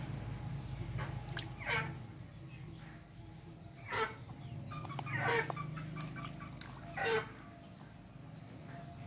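Chickens calling: four short calls that each fall in pitch, spaced a second or two apart, over a steady low hum.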